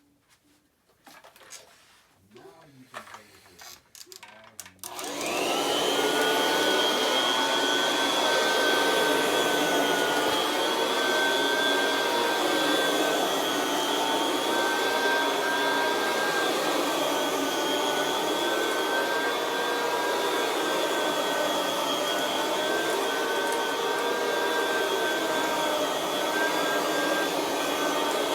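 Kirby Classic 3 upright vacuum with a buffer brush roll fitted, switched on about five seconds in after a few clicks and knocks. Its motor whine rises quickly, then runs steadily, the pitch wavering slightly as it works.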